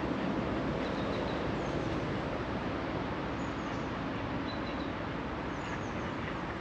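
Steady rushing outdoor background noise, with faint high bird chirps a few times.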